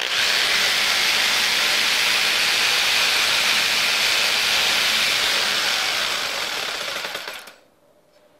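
Electric jigsaw with a fine-toothed metal-cutting blade sawing into a small steel workpiece, a loud, steady rasping cut. It starts abruptly, trails off and stops about seven and a half seconds in.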